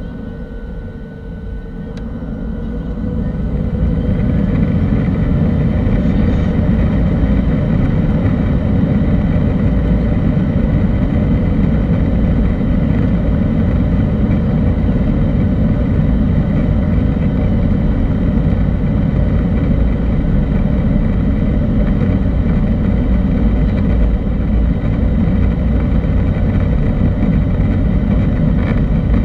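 Boeing 737-800's CFM56 turbofan engines spooling up to takeoff thrust over the first few seconds, the whine rising slightly in pitch, then running steady and loud with a low rumble during the takeoff roll, heard inside the cabin.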